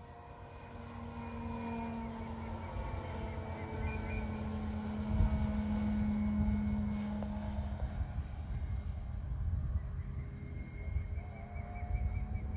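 Electric motor and propeller of a Hangar 9 Cub RC model plane whining as it flies overhead, growing louder toward the middle and easing off again.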